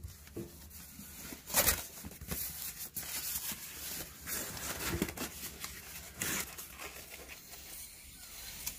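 Intermittent crinkling, tearing and sharp clicking of kindling and fire-starting material being handled as a wood fire is laid in a firebox.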